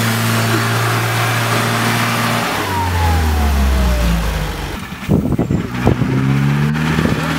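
UAZ off-road jeep's engine running under load as it churns through mud. Its note drops about two and a half seconds in, with a thin whine falling in pitch. From about five seconds a few low rumbling thumps come in, followed by another engine.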